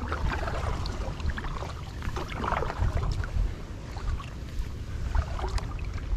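Water lapping and splashing against a kayak hull, over a fluctuating low rumble of wind on the microphone, with a few faint knocks.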